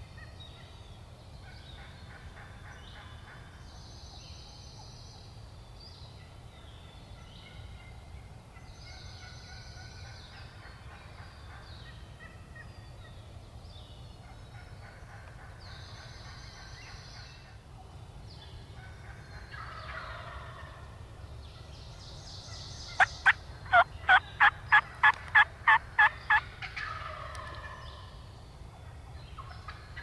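Turkey calling: a loud run of about ten sharp, evenly spaced calls, roughly three a second, in the last third, with softer turkey calls just before and after it. A songbird sings a short phrase every few seconds.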